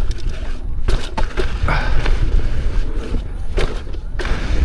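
Electric unicycle rolling fast over rough, rocky dirt trail, with repeated sharp knocks and clatter from the wheel and suspension hitting rocks, over heavy wind rumble on the microphone.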